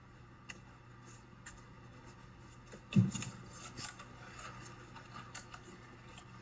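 A small cardboard product box is set down on a table with a soft thump about three seconds in. Light crackling and scraping of cardboard follow as fingers pry its end flap open.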